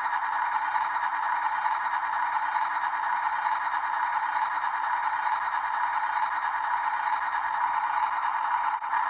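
Steady whirring rattle from radio-controlled model construction trucks' electric drive motors and gearboxes running, with a brief dip near the end.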